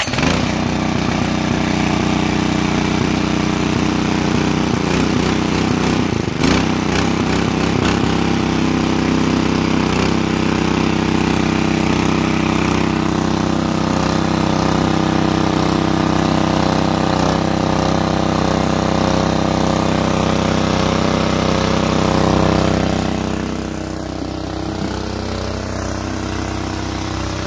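Small petrol engine of a portable water pump catching right at the start and then running steadily. It is quieter for the last few seconds.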